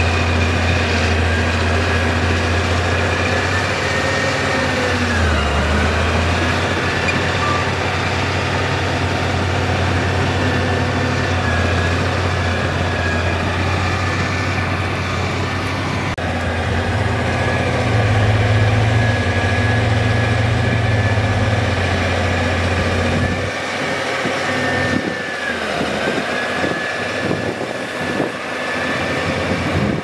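Caterpillar D6D bulldozer's six-cylinder diesel engine running steadily under load, with a thin high whine over it that dips briefly twice. About three-quarters of the way through, the deep engine note drops away.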